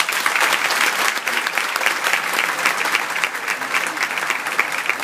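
Audience applauding, a dense patter of many hands clapping that starts abruptly and dies down near the end.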